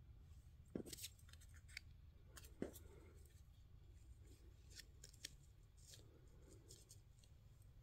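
Faint rustling and crisp little ticks of paper and card pieces being handled and layered by hand, a few short scattered sounds over a low steady hum.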